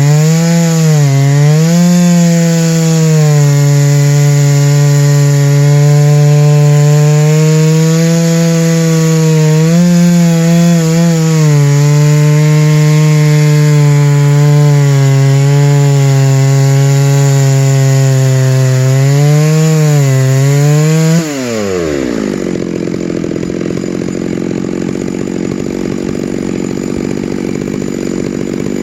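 Chainsaw running at full throttle under load, ripping lengthwise through a white spruce log, its pitch sagging slightly now and then. About 21 seconds in the throttle is released, the revs fall away quickly and the saw drops to a lower, steady idle.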